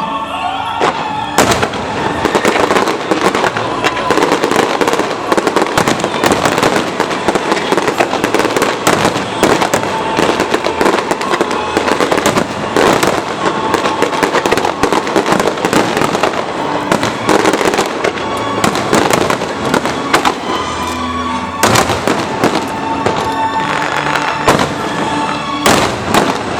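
Aerial fireworks display: a dense, continuous run of bangs and crackling bursts, with music playing underneath.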